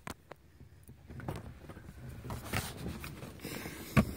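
Handling noise from a phone camera being moved about: a few sharp clicks, then uneven rustling and rumbling, with a single sharp knock near the end.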